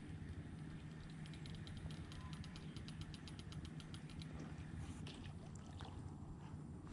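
A rapid, even ticking, about eight ticks a second, starts about a second in and runs for about three seconds over a low steady outdoor rumble. A few scattered clicks and rustles follow near the end.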